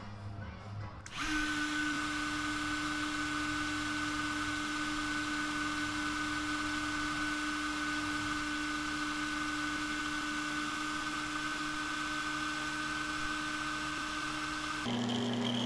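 Dremel rotary tool on a flex shaft, its small ball burr grinding detail into a carved wooden lure. It starts about a second in and runs at a steady speed with an even whine over a grinding hiss. Near the end the sound changes to a lower-pitched steady machine hum.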